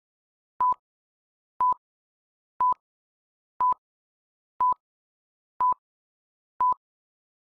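Film-leader countdown sound effect: a short, steady electronic beep once a second, seven times, with dead silence between, ticking off the countdown.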